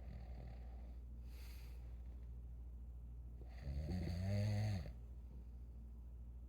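A sleeping person snoring: a soft breath about a second in, then one loud snore lasting about a second a little past halfway, over a steady low hum.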